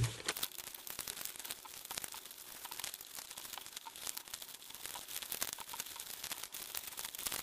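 Origami paper crinkling and rustling under the fingers as folded flaps are pressed and flipped down along existing creases, a steady run of small crackles.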